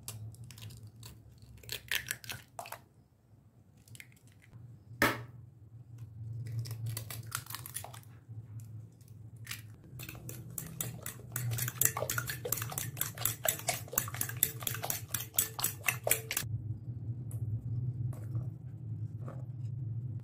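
A sharp crack of an egg struck on a glass bowl, then a metal spoon beating eggs into a milky yeast mixture, clinking rapidly against the glass bowl for about six seconds. A low steady hum runs underneath.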